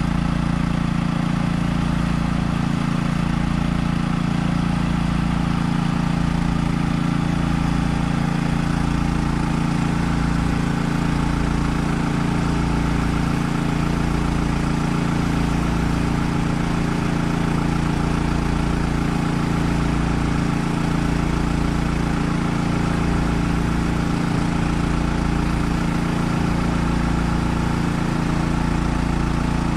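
Engine-driven drum sealcoat sprayer running steadily while it pumps asphalt sealer out to the spray wand, with a low throb about once a second.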